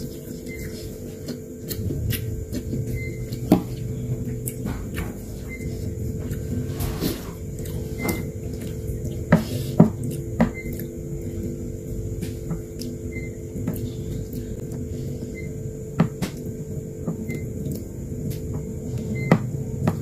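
Chopsticks and a metal spoon clicking and scraping against a bowl of bakso soup while a large meatball is picked apart, with scattered sharp clicks over a steady low hum.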